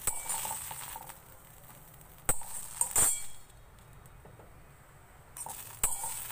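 Steel ladle clinking and scraping against a steel kadhai as roasted green peas are scooped out and tipped onto a steel plate: about five sharp metallic clinks, the loudest about three seconds in, with quiet scraping between.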